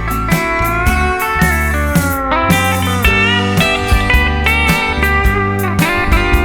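Instrumental break in a country song: steel guitar sliding between notes over a steady bass and drum beat.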